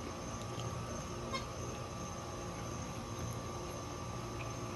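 Steady low background hum, with a few faint light clicks of a plastic fork against a plate, the clearest about a second and a half in.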